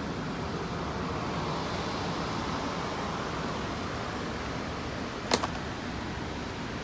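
Steady rushing of the minibus cabin's air-conditioning blower. About five seconds in there is one sharp double click.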